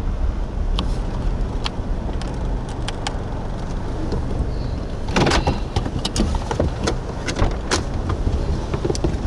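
Steady low rumble of a vehicle and wind, with scattered sharp ticks and a brief clatter about five seconds in.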